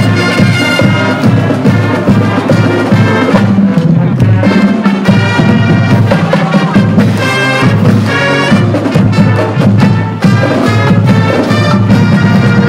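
Marching band playing a tune, with brass and drums and a low bass line.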